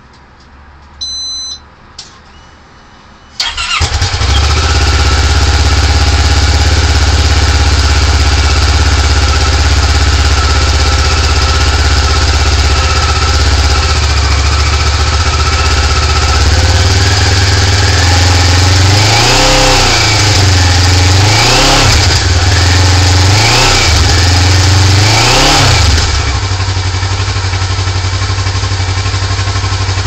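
Kawasaki ER-6f's 649 cc parallel-twin engine through its standard exhaust, started from cold: it is cranked and catches about three and a half seconds in. It then runs at a steady fast idle of around 2,000 rpm. Near the end it is blipped four times towards 4,000 rpm, each rev rising and falling back, then settles to a slightly quieter idle, echoing in an enclosed garage.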